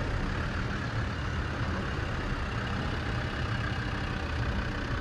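Land Rover Defender's engine running steadily as the vehicle drives slowly past, a low, even engine note with no change in pace.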